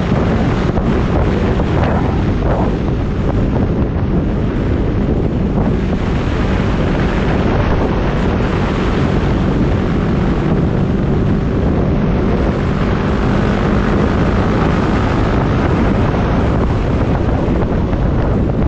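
Wind rushing steadily over the microphone at road speed, mixed with the even running of a Yamaha WR250X's single-cylinder engine at cruising speed.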